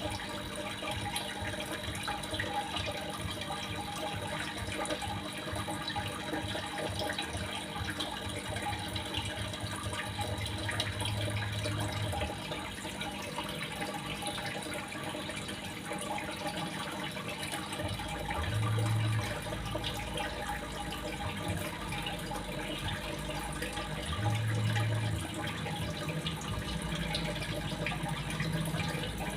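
Steady splashing and trickling of running water, like a small fountain or stream, with a low hum swelling briefly three times.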